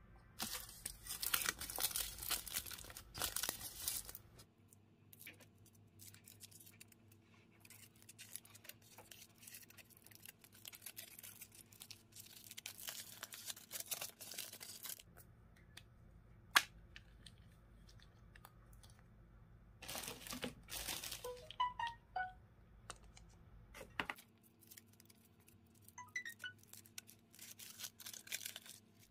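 Foil wrappers of chocolate surprise eggs crinkling and tearing as they are handled and peeled off, in several spells of rustling with short quiet gaps between them. A single sharp click about halfway through.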